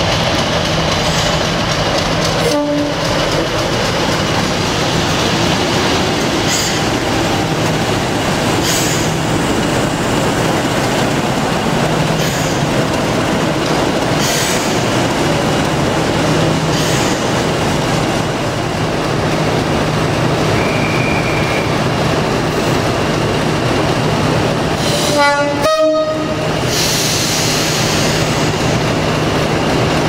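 Two Class 50 diesel-electric locomotives working together, their English Electric 16-cylinder engines running with the steady drone that earned the class the nickname 'Hoover'. A brief horn blast sounds near the end.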